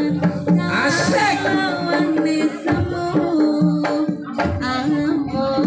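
Javanese jaranan music with kendang hand-drum beats under a continuous, wavering melody line.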